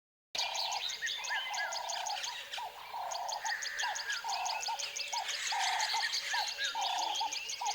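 Tropical forest ambience of many birds calling together. A mid-pitched call repeats about once a second among up-and-down chirps, over a fast, steady high ticking. The sound drops out briefly at the very start.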